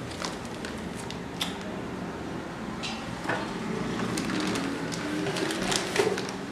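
Flour being dusted onto a plastic cutting board: a few light taps and clicks over quiet kitchen room tone.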